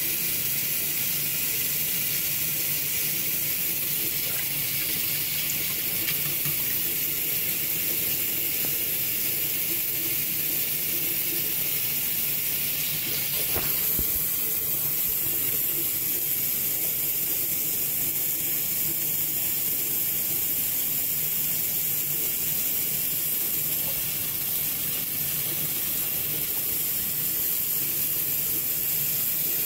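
Steady hiss of water running from a bathroom sink tap, with a single click about halfway through.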